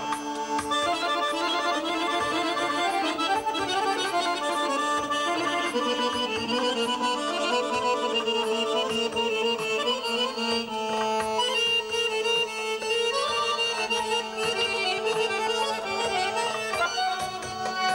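Azerbaijani garmon (diatonic button accordion) playing a fast, ornamented traditional tune over a held low note.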